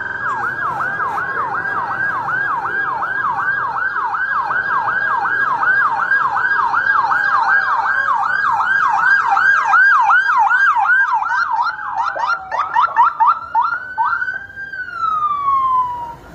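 Electronic emergency-vehicle siren sounding a fast yelp, about three pitch sweeps a second. Near the end the sweeps briefly quicken, then it holds a high note and falls away in one slow wail.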